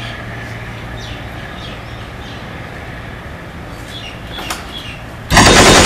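Steady low hum with faint high chirps, and a single thud about four and a half seconds in as a wooden door is kicked. Near the end a sudden, very loud burst of continuous automatic gunfire begins.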